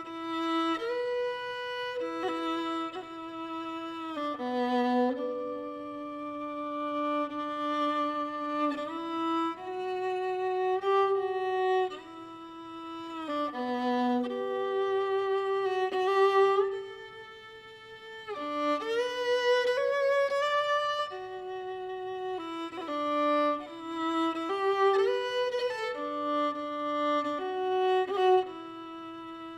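Background music: a solo violin playing a slow melody of held notes that slide from one pitch to the next.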